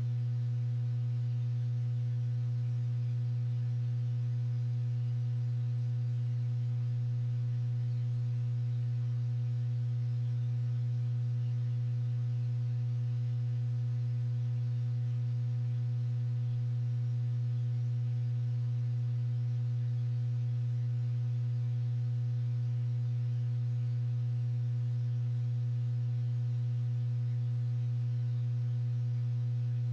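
Steady low electrical hum with faint higher overtones, holding one pitch and level.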